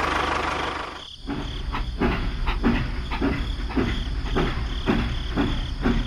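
A small engine running with a low hum. It cuts out briefly about a second in, then runs on with a regular knock, somewhat under two beats a second.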